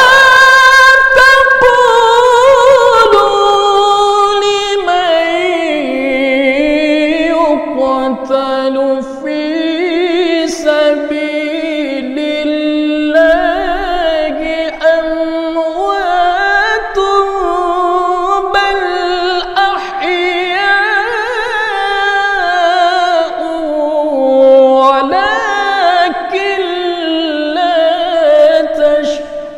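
A man reciting the Quran in the melodic tilawah (mujawwad) style: one loud solo voice drawing out long, ornamented, wavering phrases, with short breaths between them.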